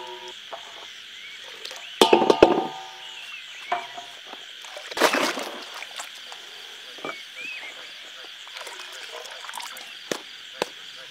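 Frogs croaking in a steady night chorus. About two seconds in a metal bowl rings briefly, and about five seconds in there is a splash of liquid from a stick stirring an indigo dye vat.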